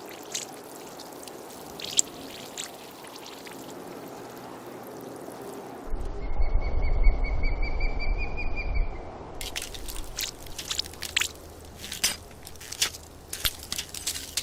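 Sound-effect water trickling and pouring, with a few drips; about six seconds in a low rumble starts under a long, wavering whistle-like tone, and from about ten seconds on comes a run of sharp, irregular clicks.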